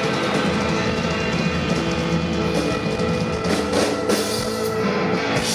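Live rock band playing: electric guitars and drum kit, with sustained guitar notes and drum hits, likely the closing bars of the song.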